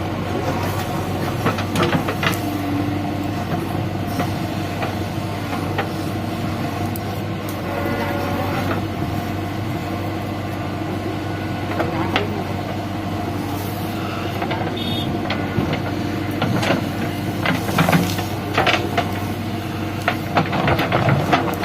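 JCB 3DX backhoe loader's diesel engine running steadily, with scattered knocks and clatter from the working machine.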